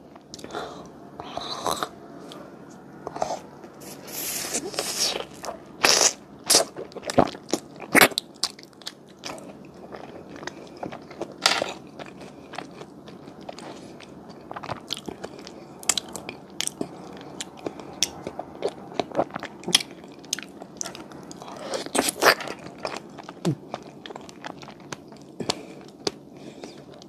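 Eating sounds of a strawberry mochi, a soft rice cake around a fresh strawberry: bites and chewing with many quick, irregular wet mouth clicks.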